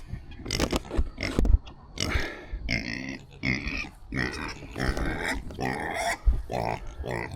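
Pigs grunting and oinking in a string of short, fussy calls about one a second, after a few knocks near the start.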